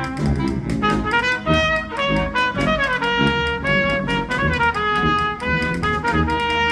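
A wind band playing, brass to the fore, with regular percussion strokes marking the beat.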